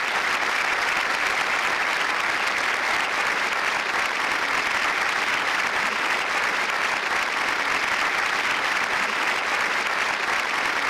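An audience applauding: a steady wash of many hands clapping that holds at an even level.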